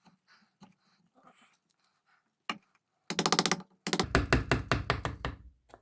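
Hand tools working a wooden rifle stock: faint scratchy clicks, a single sharp click, then two fast runs of sharp taps, the second heavier and dying away near the end.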